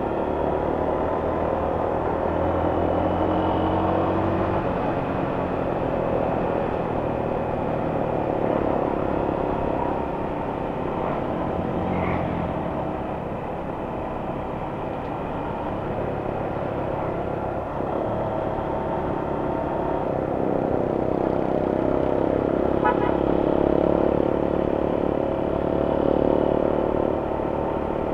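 Motorcycle engine running as the bike is ridden along a winding road, heard from on board, its note rising and falling with the throttle and easing off for a few seconds around halfway.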